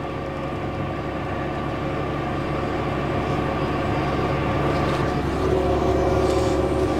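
Steady engine drone of harvest machinery heard from inside a tractor cab: a Claas Lexion combine working soybeans alongside, growing gradually louder. A new steady tone joins about five seconds in.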